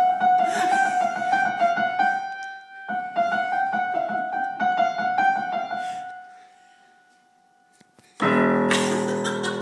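Grand piano played rapidly: quick notes clustered around one repeated high note in two phrases. The sound dies away to near silence about six seconds in, then a loud crash of low chords strikes near the end.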